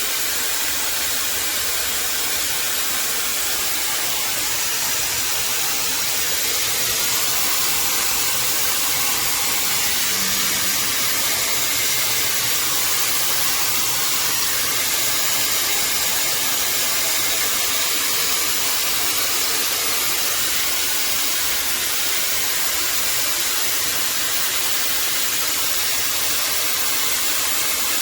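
Shark FlexStyle hair dryer running steadily: an even rush of air from its fan.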